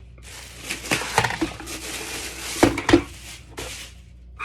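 Packaging rustling and crinkling while the electric kettle's plastic base unit is unwrapped and lifted out. There are a few sharp knocks of plastic, and the two loudest come close together past the middle.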